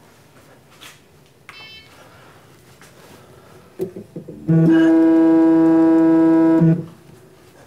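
Mill's Z-axis stepper motor whining at one steady pitch for about two seconds as the head is jogged, starting and stopping abruptly after a few short chirps.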